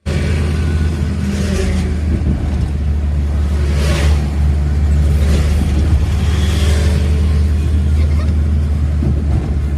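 Suzuki Karimun Kotak driving along at a steady pace, a steady low engine drone mixed with tyre and road noise.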